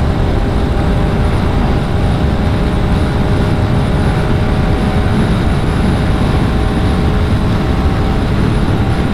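SYM ADX 125 scooter's single-cylinder 125cc engine running flat out at about 110–117 km/h, near its top speed, a steady drone that holds one pitch. Heavy wind rush on the microphone at highway speed.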